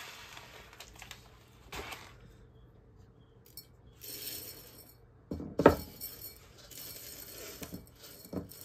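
Light clinks and taps against a glass jar as white granules are spooned and poured in, with one loud knock about five and a half seconds in.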